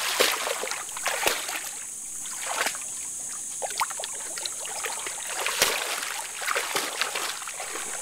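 Shallow floodwater splashing and sloshing as a dog wades through it, with a few sharper splashes, over a steady high hiss.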